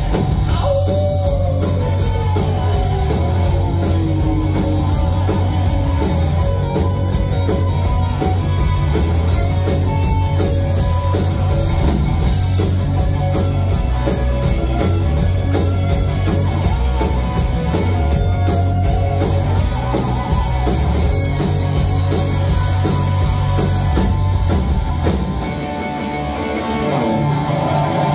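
Live rock band playing an instrumental passage: electric guitars, bass and drum kit keep a steady beat. Near the end the bass and drums drop out briefly and the sound thins, then the full band comes back in.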